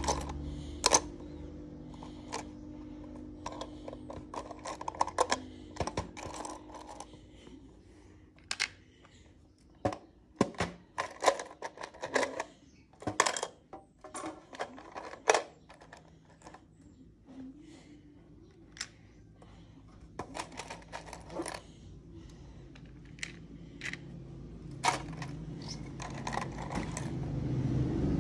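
Plastic Lego pieces clicking and clattering against each other and the metal tin as a hand rummages through them, in many sharp, irregular clicks. A low steady hum runs underneath and grows louder near the end.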